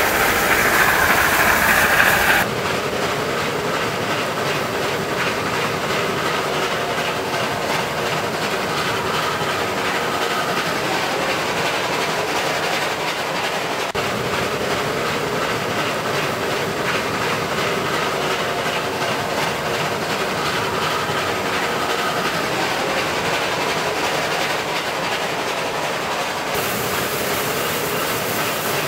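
Class 25NC steam locomotive running, heard from the cab: a steady rush of running noise. It is louder and more hissing for about the first two seconds, then changes abruptly to a steadier sound.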